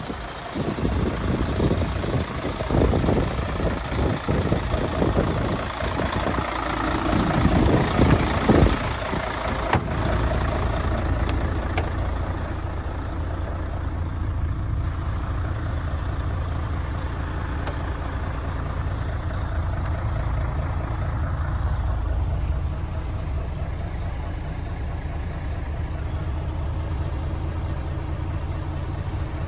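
Mercedes-Benz Actros 1844's V6 diesel engine idling. For the first nine seconds or so the sound is louder and uneven, with a single knock about ten seconds in; after that the idle is heard as a steady low rumble from inside the cab.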